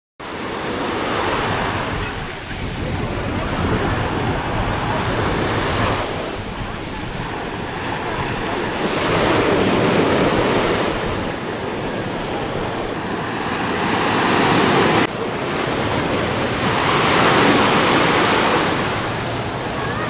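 Surf breaking on a sandy beach, the waves swelling and washing in every few seconds. The sound drops suddenly about three-quarters of the way through.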